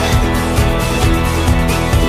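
Background pop song, an instrumental stretch between sung lines with a steady beat.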